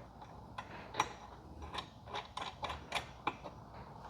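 Faint, irregular small metal clicks and taps of hardware being handled: a lock nut being fitted onto a bolt through the rack's steel bracket.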